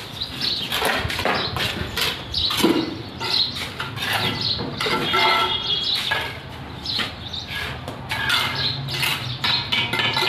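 Knocks, clinks and scrapes of bricklaying work: a shovel scraping through wet mortar on concrete, and bricks being knocked and set, in a quick irregular series.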